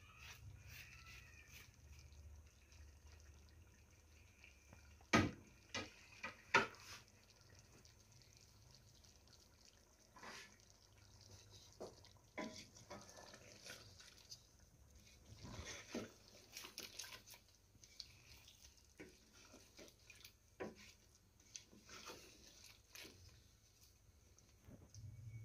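Wooden spatula stirring thick chicken curry in a steel pot: quiet wet stirring with scattered knocks and scrapes against the pot. The loudest are two sharp knocks about five and six and a half seconds in.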